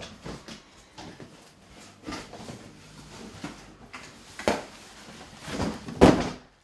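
Cardboard box and plastic wrapping rustling and scraping as a heavy photo printer is worked out of its packaging and lifted out of the box, with scattered knocks and a louder bump near the end.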